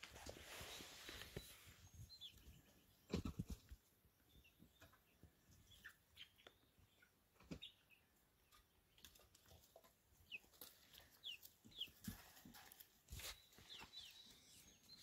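Young pullets faintly peeping and clucking as they forage, scattered short high chirps that fall in pitch, with a low thump about three seconds in.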